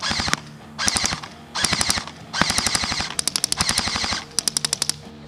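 LCT AK-12 airsoft electric gun firing on full auto: five bursts of rapid, evenly spaced shots. The fourth burst is the longest, about two seconds; the rest are well under a second.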